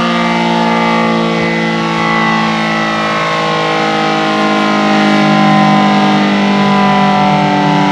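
Reverse-wired ACA Screamer S10 outdoor warning siren sounding a steady full alert tone, several pitches held together at once. The tone swells slightly about five seconds in.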